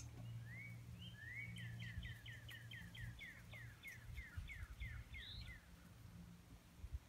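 A songbird singing a long run of quick down-slurred whistled notes, about three a second, starting about half a second in and stopping a little over two-thirds of the way through, over a steady low hum.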